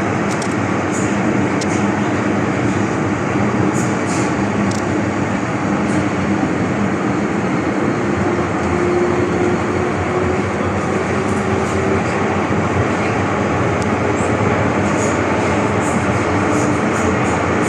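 MTR Tsuen Wan Line M-train running at speed: a steady rumble of wheels on rail, with a faint motor whine that rises a little about halfway through and a few light clicks.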